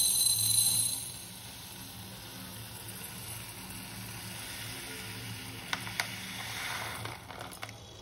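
Dry red lentils pouring from a bag into a glass bowl: a steady rattling hiss of grains on glass, loudest in the first second and then softer.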